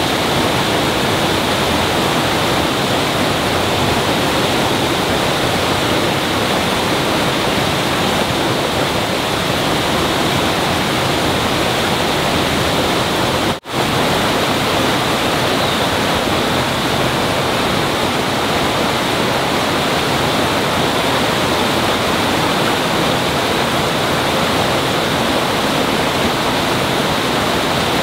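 Loud, steady rush of flowing water, with a momentary break about halfway through.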